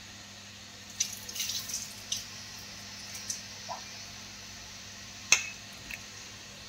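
A few short clinks and taps of kitchen utensils and vessels: a quick cluster about a second in, a couple of single taps, and one sharper, ringing clink about five seconds in.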